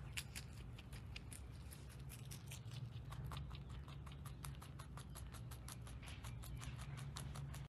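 A rabbit chewing a green herb stem: quick, quiet crunching clicks, several a second, as it nibbles the stalk into its mouth, over a low steady hum.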